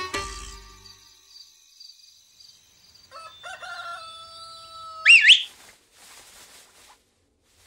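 Cartoon sound effect of a rooster crowing for morning: a held call that ends in a loud, high, warbling flourish about five seconds in.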